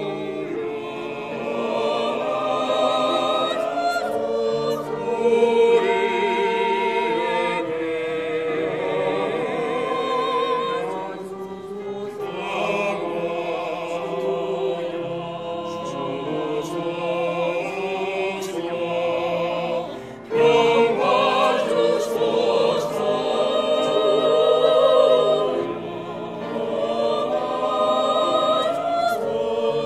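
Choir singing a slow sacred anthem in held, wavering notes. The voices drop away briefly about twenty seconds in and come back in loudly.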